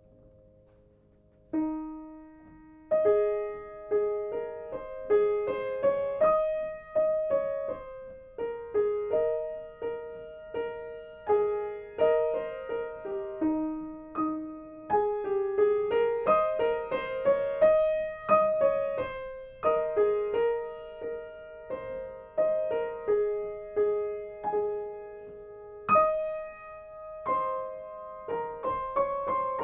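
Piano playing a melody of separate struck notes that ring and fade, starting about a second and a half in after a faint held tone.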